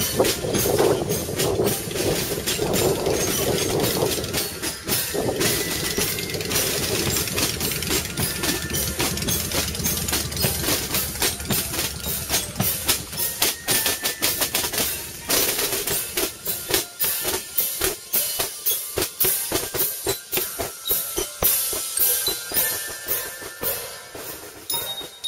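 Sea cadet marching band drums beating a steady marching cadence on snare and bass drums, the beats standing out more sharply in the second half. A low rumble sits under the first half.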